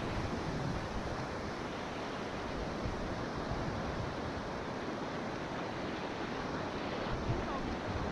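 Steady rush of water from the Enns river around a kayak, with wind noise on the microphone.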